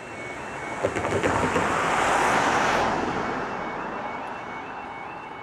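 Level crossing warning alarm sounding its repeating two-tone yodel while a road vehicle drives over the crossing and past: tyre and engine noise swells to its loudest about two seconds in and fades away, with a few knocks as it goes over the rails.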